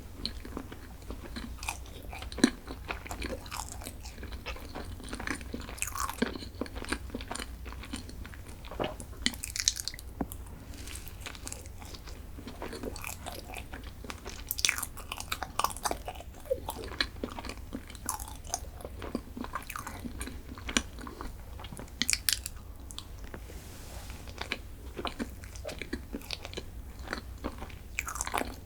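Close-miked eating: crunchy bites and chewing of chocolate snacks, with many short crackles scattered throughout over a steady low hum.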